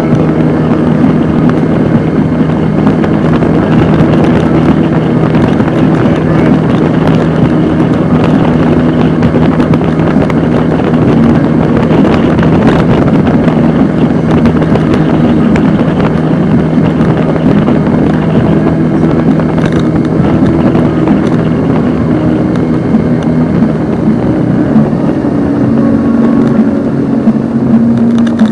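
A small boat's motor running steadily underway, with a constant rush of wind and water noise over its hum.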